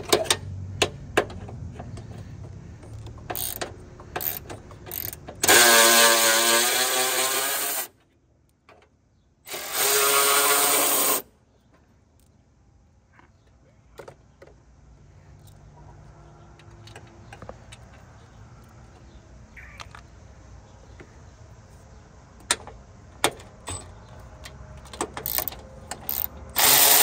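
Milwaukee Fuel cordless electric ratchet running in two bursts of about two seconds each, a few seconds in, and once more briefly at the end, as it backs out the radiator core support bolts. Scattered clicks and clatter of the tool and bolts being handled fall between the runs.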